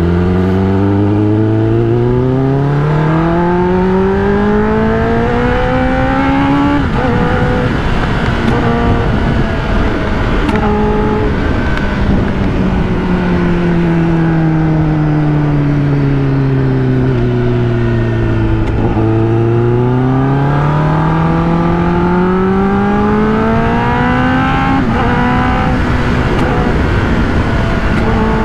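Sport motorcycle engine pulling up through the revs, with an upshift about seven seconds in. Its pitch falls slowly as the bike rolls off and slows, then climbs again under acceleration, with another upshift near the end.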